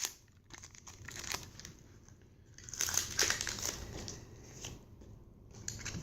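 Foil wrapper of a Pokémon trading card booster pack crinkling and tearing as it is opened by hand, loudest about three seconds in.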